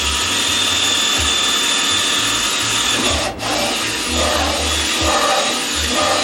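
Electric drill boring a hole through the plastic wall of a bucket near its base, running steadily with a brief stop about three seconds in.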